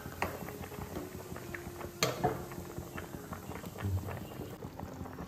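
Pot of fish broth at a rolling boil, bubbling steadily, while a spoon is moved through it; there is a sharp clink about two seconds in.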